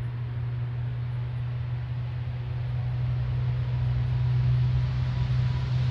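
Lockheed C-130 Hercules turboprop engines running as the aircraft taxis: a steady low drone that grows a little louder about halfway through.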